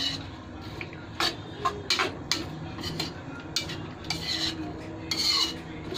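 Metal spoon stirring vegetables in a metal pan: irregular clinks and scrapes of spoon against pan, with a couple of longer scrapes near the end.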